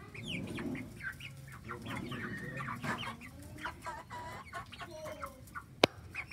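Young chickens, about twelve weeks old, clucking and making short high chirping calls while they feed. There is one sharp click near the end.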